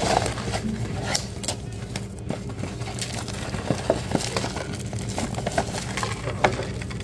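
Clear plastic shrink-wrap on an instant-noodle cup crinkling and crackling as it is peeled off by hand, in an uneven string of sharp crackles.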